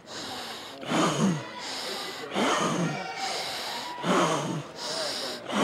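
A man blowing up a large weather balloon by mouth. He takes sharp, gasping breaths in about every second and a half, with a long, hard blow into the balloon between each.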